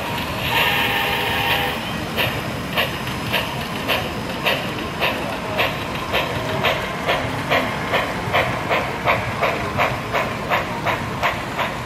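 Sound-equipped HO scale model steam locomotive: its speaker plays a hiss of steam with a held tone, then steady exhaust chuffs that quicken from about two to three or four a second as the engine picks up speed.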